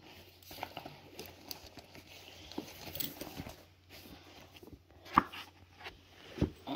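Paperback books being handled and set down on a wooden floor: soft rustling with light knocks, a sharper one about five seconds in and another near the end.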